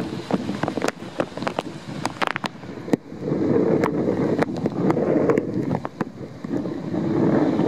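Strong wind buffeting the microphone over waves breaking on a rocky lakeshore, a rushing roar that grows louder about three seconds in, with many short crackles.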